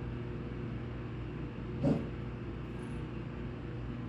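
Steady low mechanical hum, with one short sound about two seconds in.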